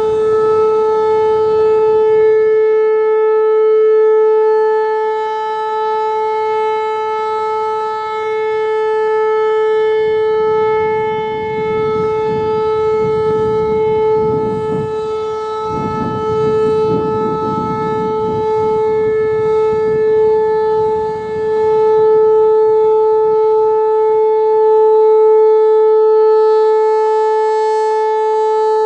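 Whelen Vortex R-4 electronic storm siren sounding a steady, unchanging tone during a test, its loudness swelling and easing slightly.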